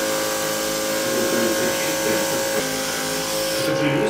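Steady electrical hum and hiss of running equipment, holding several constant tones, with faint voices murmuring underneath.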